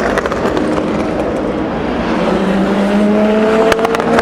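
Race car engine accelerating out of a corner, its pitch rising slowly through the second half, with a few sharp cracks shortly before the end.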